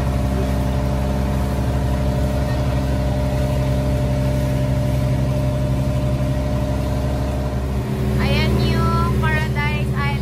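Engine of a bangka outrigger boat running steadily under way, a loud even hum. About eight seconds in, its note shifts briefly and people's voices come in over it.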